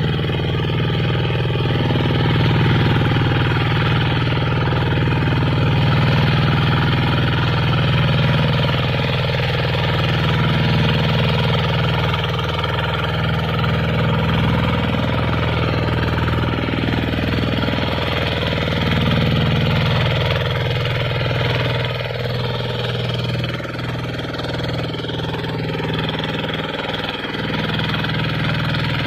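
Two-wheel hand tractor's single-cylinder diesel engine running steadily under load while plowing a muddy rice paddy, easing slightly about three-quarters of the way through.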